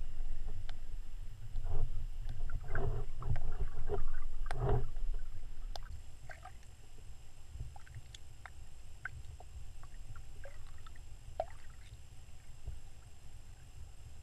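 Muffled underwater noise heard through a submerged camera's housing: a steady low rumble, with a run of knocks and clicks in the first five seconds, then scattered faint ticks.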